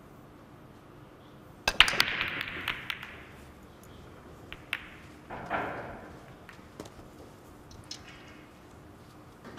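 Nine-ball break shot: about two seconds in, a sharp crack as the cue ball smashes into the racked balls, then a quick clatter of balls knocking together that dies away within about a second. A few separate ball clicks follow as the balls roll out and settle.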